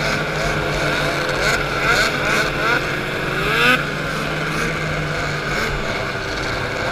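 Racing snowmobile engine running hard, a steady high drone with other sleds' engines around it. The pitch climbs several times in the first half, and the loudest climb breaks off sharply just past halfway.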